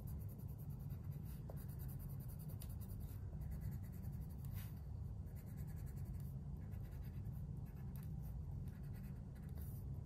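Coloured pencil scratching on drawing paper in quick, uneven strokes as it fills in colour, over a steady low hum.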